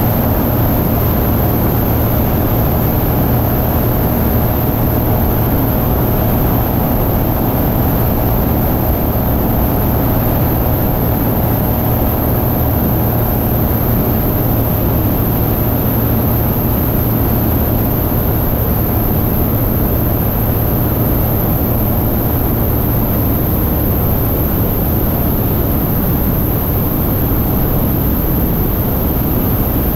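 Van's RV-9A light aircraft in flight: its piston engine and propeller drone steadily, under heavy wind rush on the outside-mounted camera.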